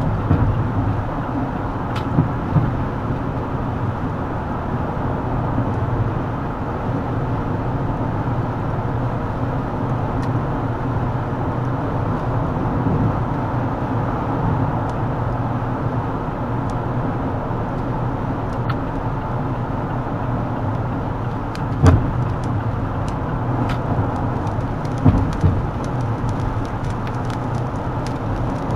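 Steady road and tyre noise of a car driving on a rain-wet highway, heard from inside the cabin. A few short, sharp knocks, two early on and two more in the last quarter, stand out from the steady noise.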